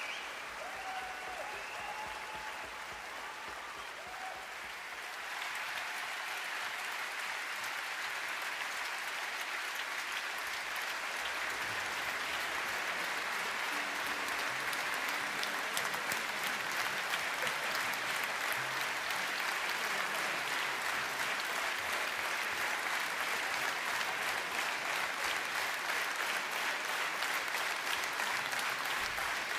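A large concert-hall audience applauding, the clapping swelling and growing louder about five seconds in and holding steady after that.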